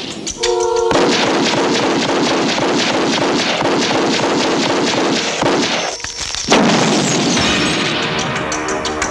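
Action-film soundtrack: a short held clarinet note, then rapid gunfire over the score for several seconds. After a brief drop, a sudden loud blast comes about six and a half seconds in, followed by music.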